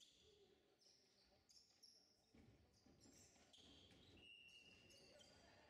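Faint sounds of basketball play on a gym court: sneakers squeak on the floor again and again, and a ball is dribbled.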